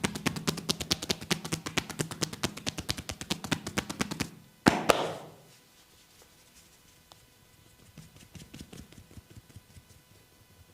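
Rapid, even percussive massage strokes, hands tapping and slapping on the body at about eight strokes a second. The strokes stop after about four seconds, followed by two sharp, much louder smacks in quick succession, then only a few faint taps.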